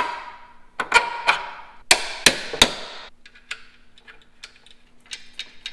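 Metal hand tools and mount hardware clanking against a steel engine mount bracket. There are several sharp knocks with a brief metallic ring in the first three seconds, then lighter, irregular taps and ticks.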